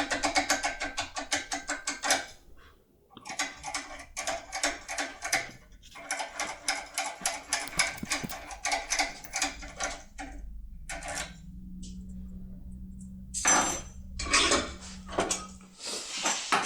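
Foil lockpick tool being jiggled in a Ucem 2000 pin-tumbler cylinder: runs of rapid metallic clicking and rattling, broken by short pauses, with a few louder clusters of clicks near the end.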